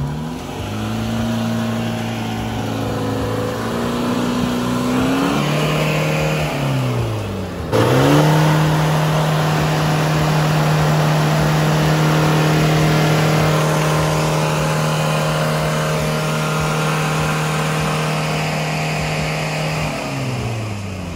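Off-road 4x4's engine revving hard while the vehicle is stuck in sand during a winch recovery. The revs rise and fall, then are held steady and high for about twelve seconds before dropping near the end.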